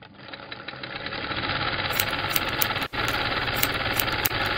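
Sewing machine running fast, a dense rapid stitching rattle that builds up over the first second or so, stops for an instant about three seconds in and starts again, with sharp clicks over it in the second half.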